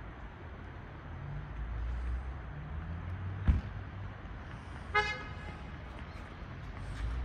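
Outdoor city ambience with a low rumble of traffic that swells and fades. A single sharp thump comes about halfway through, and a short car horn toot sounds about five seconds in.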